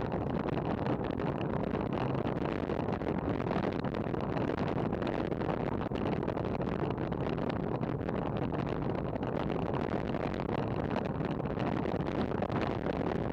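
Steady rush of wind and road noise on the microphone of a camera mounted on a racing bicycle moving at speed in a pack.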